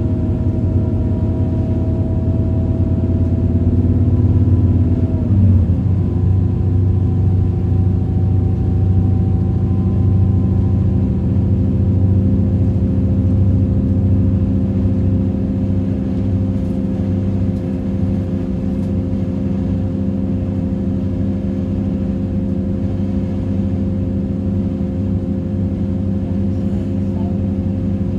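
Diesel multiple unit running under way, heard from on board: a steady engine drone over the low rumble of the train. About five seconds in the engine note drops suddenly, then holds steady.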